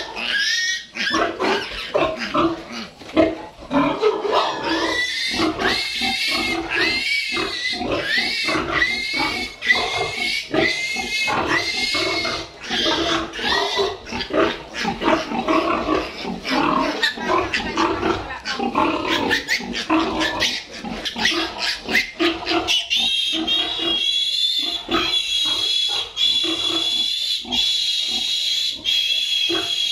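Piglets squealing loudly and without pause as they are caught and held for iron injections and tail docking. Short rising-and-falling squeals at first, then from about three-quarters through a higher, long, drawn-out squeal.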